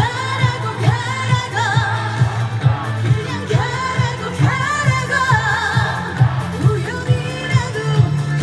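A woman singing a Korean trot song live, with vibrato, over musical accompaniment with a steady beat.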